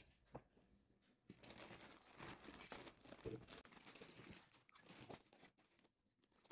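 Plastic mailer bag crinkling and rustling faintly as it is handled and turned over, in irregular bursts mostly through the middle few seconds.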